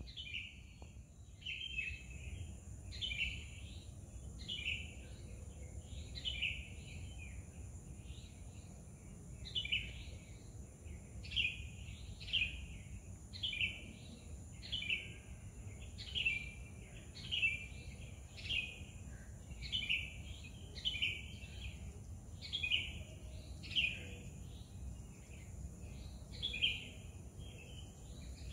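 A small songbird calling over and over, a short chirp about once a second with brief gaps, over a steady low background rumble and a faint steady high-pitched tone.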